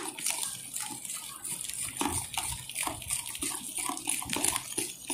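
Metal spoon stirring curd, sugar and oil in a bowl into cake batter: irregular wet sloshing with light scraping of the spoon against the bowl.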